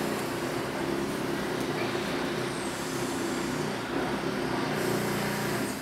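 Many voices together holding a steady low drone on several pitches at once, as a group vocal and breathing exercise; it stops abruptly near the end.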